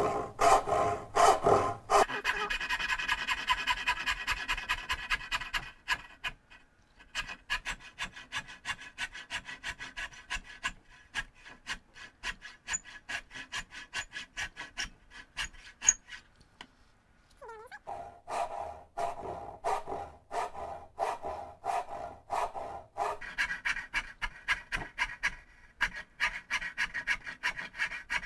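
Back saw cutting a small hardwood spoon blank by hand: steady back-and-forth strokes rasping through the wood, with short pauses twice. The cuts rough out the blank's curved outline, sawing in toward the marked line.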